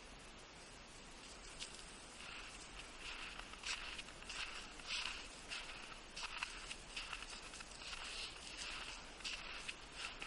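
Irregular crunching and rustling in crusted snow and dry grass, in uneven clusters that grow busier about two seconds in.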